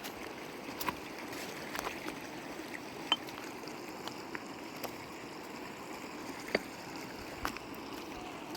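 River water flowing in a steady rush, with a few sharp clicks or taps scattered through it.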